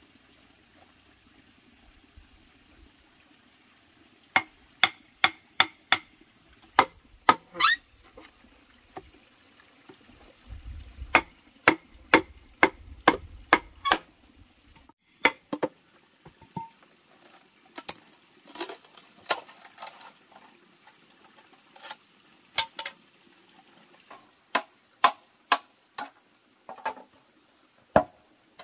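Machete blade chopping into green bamboo poles: sharp strikes in quick runs of four or five, with pauses between. A steady high insect buzz underneath.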